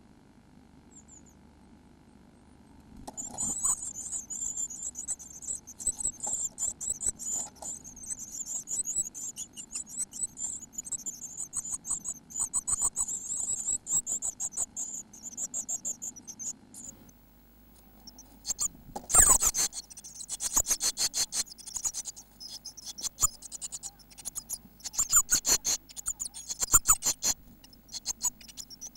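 Blue tit nestlings begging: a rapid, high-pitched cheeping chorus starting about three seconds in. In the second half, loud scratching and knocking from birds moving against the nest box joins the calls.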